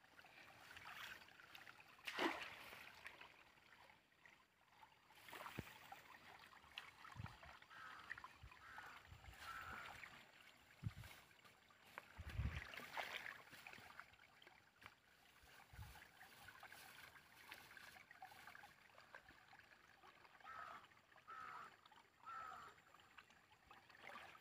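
Faint sloshing of shallow water and squelching of wet mud being packed by hand around a woven bamboo fish trap, with a few soft low thumps.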